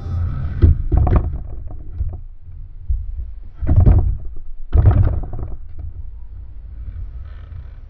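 Skateboard wheels rolling on a plywood mini ramp, a low rumble that fades away near the end, broken by three louder scraping clacks as the board's trucks hit and grind the metal coping: about a second in, near four seconds and near five seconds.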